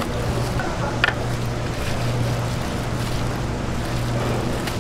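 A steady low mechanical hum over a general background rush, with one sharp tap of the kitchen knife against the cutting board about a second in as the gimbap roll is sliced.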